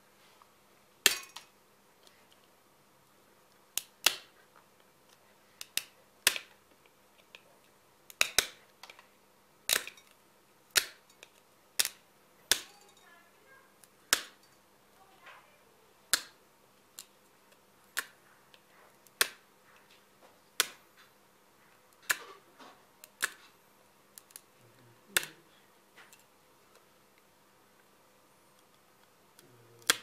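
Pliers snipping through a small piece of clear plastic: about twenty sharp snaps, one every second or two.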